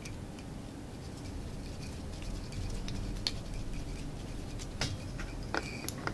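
Small irregular clicks and rustles of hands working at a fly-tying vise, wrapping thread to tie in an articulation loop, over a low steady room hum. The sharpest clicks come in the second half.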